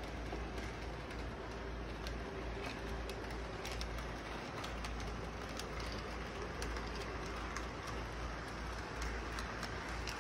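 Electric model train running along three-rail track: a steady low rumble and whir from the locomotive and rolling cars, with irregular clicks as the wheels pass over the rail joints.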